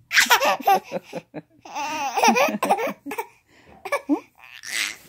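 A baby laughing in bouts of giggles. There are three bouts: a short one at the start, a longer one about two seconds in, and a brief one near the end, with breaths between.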